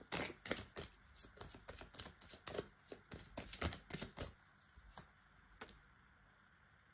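Tarot cards being shuffled and handled: a quick run of card flicks and taps for about four seconds, then two single taps.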